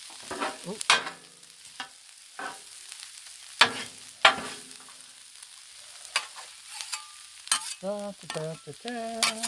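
Metal spatulas scraping and clacking on the steel cooktop of a Blackstone griddle as beans, rice and sausage are tossed together, over a steady sizzle of frying food. The sharpest clacks come near the middle.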